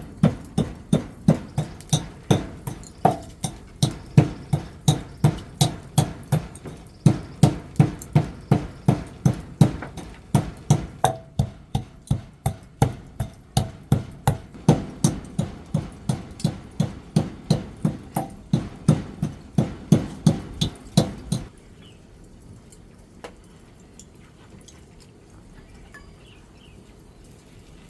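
A steady run of sharp knocks, about two a second, that stops about 21 seconds in, followed by faint bird chirps.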